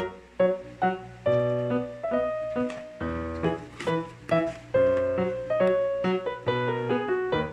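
Background music: a piano melody of separate notes, each struck and fading, one after another.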